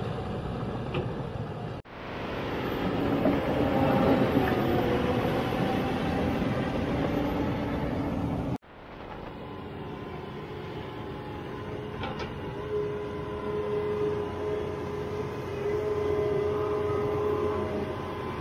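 Heavy John Deere earthmoving machines working: a crawler dozer's diesel engine, then a John Deere 210G excavator's engine running under load as it digs, with a steady whine in the later part. The sound cuts off abruptly twice, at edits.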